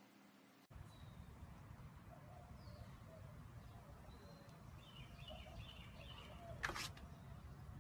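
Faint outdoor ambience: a low steady rumble with a few faint bird chirps, beginning after a short silence. A single sharp click comes near the end.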